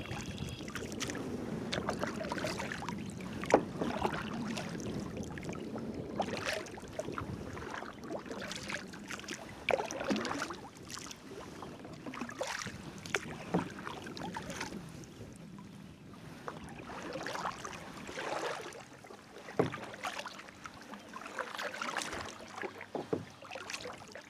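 Kayak paddle strokes, the blades dipping and splashing in the water every few seconds, with wind rumbling on the microphone that eases about two-thirds of the way through.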